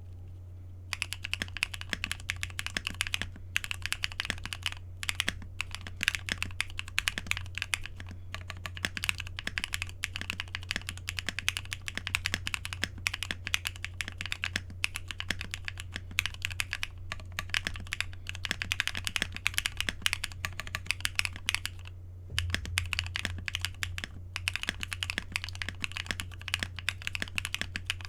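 Typing on a Cannonkeys Bakeneko 60% mechanical keyboard with lubed POM Durock linear switches on an FR4 plate and PBT keycaps: a fast, continuous stream of keystroke clacks that starts about a second in, broken by a few brief pauses.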